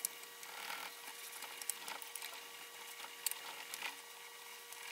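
Fine #0000 steel wool scrubbing surface rust off a shotgun's steel magazine tube with solvent: faint, uneven scratchy rubbing with a few light clicks.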